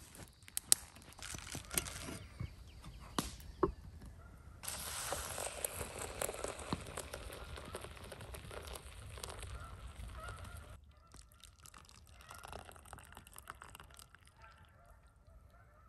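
A few knocks as a soot-blackened camp kettle is set down on a wooden plank table. Then hot water is poured from the kettle into a paper coffee filter for about six seconds, a steady splashing pour. Canada geese honk faintly in the background, most clearly after the pour stops.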